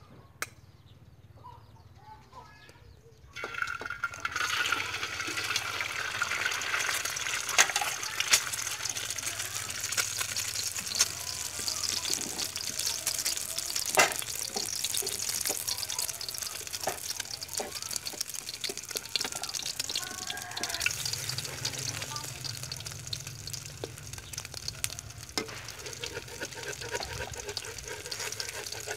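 A single tap near the start, then an egg dropped into hot oil in a steel wok bursts into loud sizzling about three seconds in. The sizzling goes on steadily, dotted with sharp pops and crackles of spitting oil.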